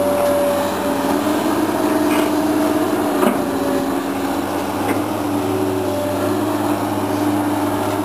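Komatsu PC220 hydraulic excavator working: its diesel engine runs steadily with a hum and tones that shift slightly in pitch as the machine moves. A few light knocks come through, the loudest about three seconds in.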